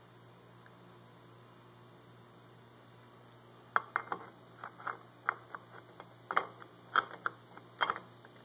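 A dozen or so light, sharp metallic clinks starting a few seconds in, irregularly spaced over about four seconds: a Hyosung motorcycle's clutch pressure plate being fitted and settled onto the clutch pack.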